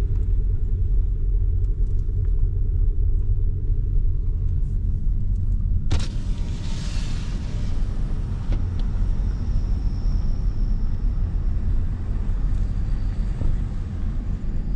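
Steady low rumble of a car driving slowly, heard from inside the cabin. About six seconds in there is one sharp click, followed by a brief hiss.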